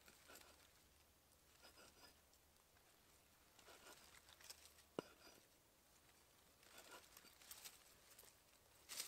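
Faint cuts and scrapes of a small 600 g Urnieta forest axe slicing food on a wooden chopping board, with one sharp knock of the blade about halfway and a louder brief scrape near the end.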